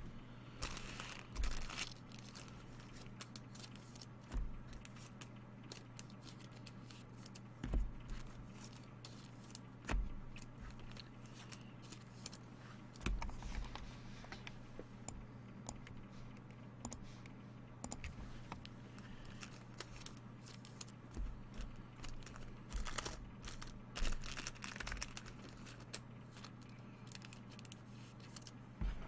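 Trading card packaging being handled: wrappers crinkling and tearing in short spells, with occasional soft knocks as cards or boxes are set down, over a steady low hum.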